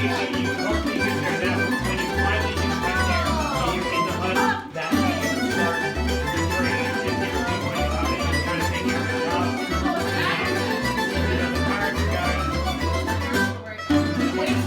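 A Croatian tamburitza ensemble playing live: plucked tamburica lutes carrying the tune over a plucked bass line. The music dips briefly twice, about five and fourteen seconds in.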